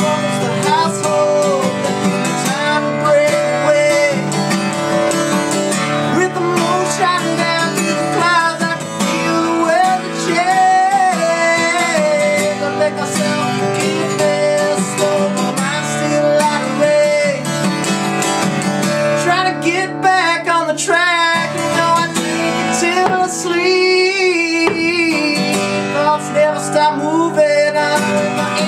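Acoustic guitar strummed steadily, with a harmonica in a neck holder playing a wavering, bending melody over it.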